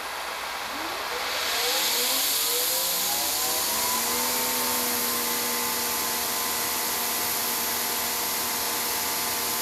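Greenworks 2300 psi electric pressure washer spraying with the trigger held: a steady hiss of water, while the motor's whine rises in pitch over the first few seconds and then holds steady. This is the slow pressure ramp-up after the trigger is pulled, the delay the owner dislikes.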